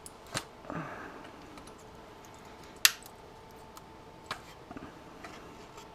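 Sharp clicks and snaps of small plastic and metal parts of a surge protector being worked apart by hand, three distinct ones with the loudest about three seconds in, and a brief scraping rustle about a second in.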